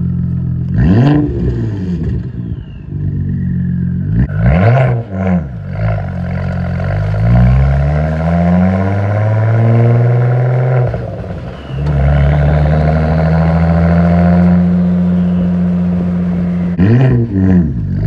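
Straight-piped exhaust of a B6 Audi A4 2.7T, the engine idling between revs. A quick blip comes about a second in and a couple more around four to five seconds. The revs then climb more slowly, drop, and hold steady for a few seconds, and two more quick blips come near the end.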